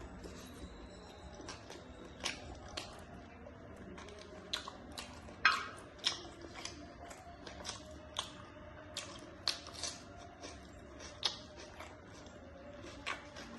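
A person eating close to the microphone: chewing and biting with irregular wet, sharp mouth clicks and squishes, the loudest about five and a half seconds in.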